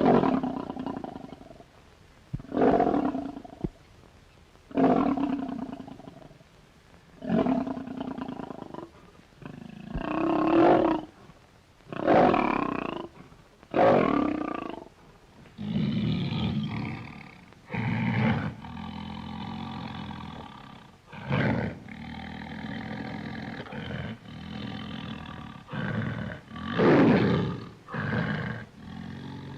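Bear roar sound effects: a series of separate roars, each lasting about a second with short pauses between them. About halfway through they give way to more continuous growling broken by further roars, with one long, loud roar near the end.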